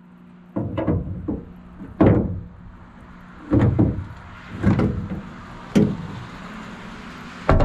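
Loose, rusted truck-bed sheet metal being tugged and knocked on: a run of about six sharp clunks and rattles, one every second or so, each dying away quickly.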